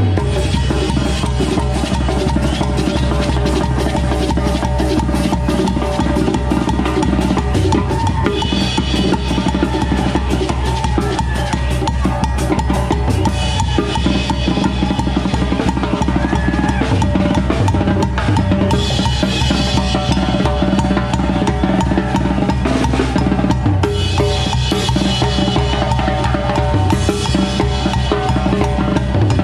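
Live brass band playing: drum kit, bass drum, snare and congas keep up a driving beat, and the trombones and trumpets come in with loud phrases about every five seconds.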